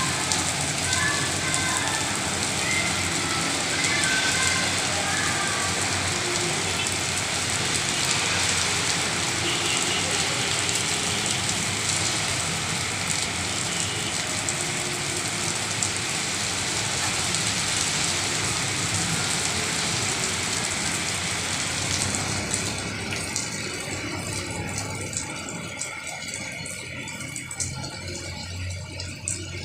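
Heavy rain falling, a steady hiss that eases off about three-quarters of the way through.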